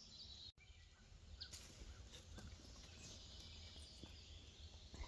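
Near silence: faint outdoor background noise with a faint chirp and a few light clicks.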